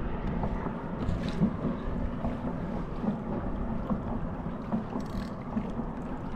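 Steady wind rumble on the microphone over choppy water sloshing around a fishing kayak, with a few faint clicks.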